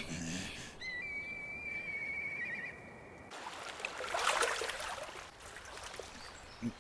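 A long high whistle, steady and then warbling near its end, cuts off abruptly about three seconds in. Then comes the splash of water as cupped hands scoop from a stream.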